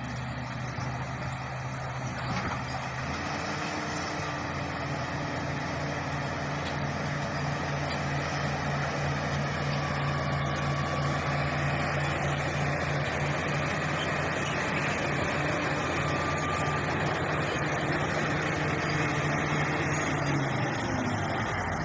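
Shantui SD16 bulldozer's diesel engine running steadily while the machine works, its pitch stepping up a little about three seconds in and then holding.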